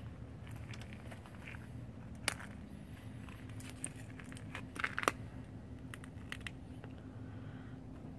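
Small flame stove burning as a lantern, giving a scatter of small sharp crackles and clicks over a low steady hum. The loudest clicks come about two seconds in and again around five seconds.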